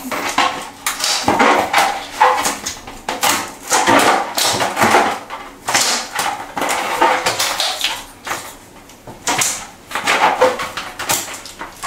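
Inflated rubber balloon being handled, its skin squeaking and rubbing under the fingers in irregular short strokes as its neck is stretched out.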